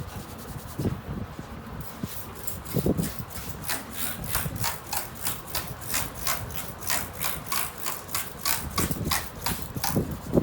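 Hands briskly rubbing a person's scalp and hair in a head massage: a fast, even rubbing of about three to four strokes a second that starts about two seconds in, with a few dull thuds.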